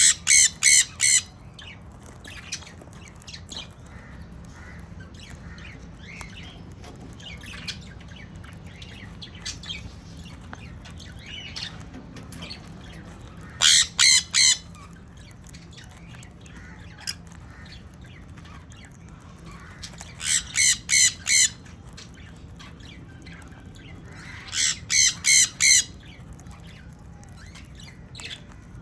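Sun conures screeching in short bursts of three to five rapid shrill calls, four bursts in all, with quieter chirps between them over a steady low hum.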